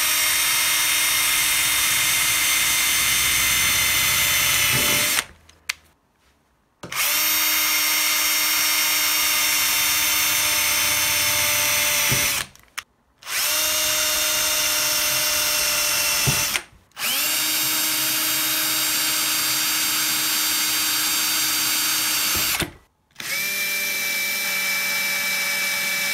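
Bosch power drill boring holes through a thin metal plate, running with a steady whine in five runs of a few seconds each, with brief stops between them.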